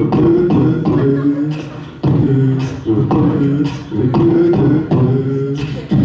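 Beatboxing: vocal percussion with sharp click- and snare-like hits on a steady beat over a hummed, pitched bass line.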